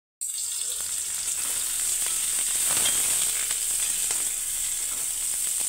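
Sliced onions sizzling in hot oil in a wok, a steady frying hiss that starts suddenly, with faint clicks of a spatula stirring them.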